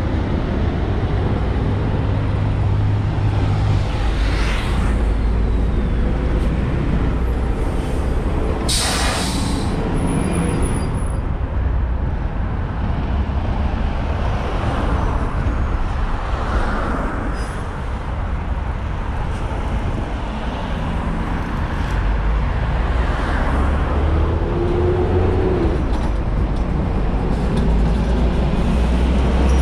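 City buses in traffic: a low engine rumble throughout, growing heavier near the end as an articulated bus drives close past. About nine seconds in comes one loud, short hiss of air brakes releasing, with fainter hisses before and after.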